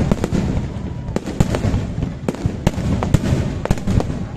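Aerial firework shells bursting in rapid, irregular succession during a display's finale: sharp bangs, several a second, over a continuous low rumble.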